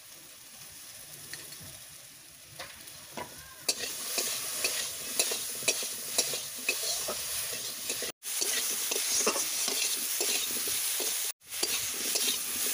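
Potato and green-banana pieces sizzling in hot oil in a kadai, with a spatula scraping and stirring them; the stirring grows louder and busier about four seconds in, and the sound drops out briefly twice.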